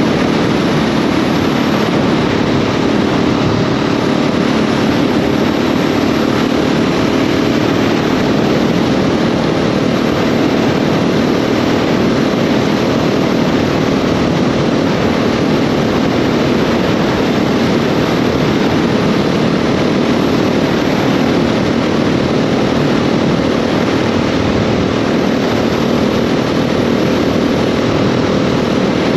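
KTM 690 SMC R's single-cylinder engine running steadily while riding, under a dense rush of wind noise with no clear revving up or down.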